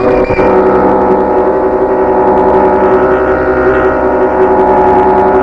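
A loud, gong-like metallic drone of several steady tones held together. It starts abruptly and then holds level, with a slight shimmer and no fading.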